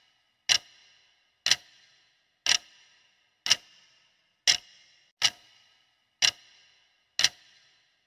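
Clock-tick sound effect counting down a quiz timer: eight sharp ticks, about one a second, each with a short bright ring.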